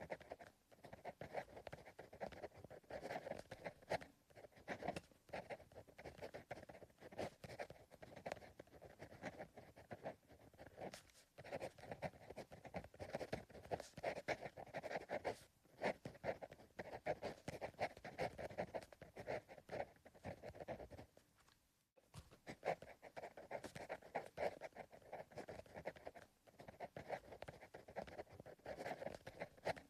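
Pencil writing on paper: a continuous run of soft, scratchy strokes with short pauses between words, and a brief break about two-thirds of the way through.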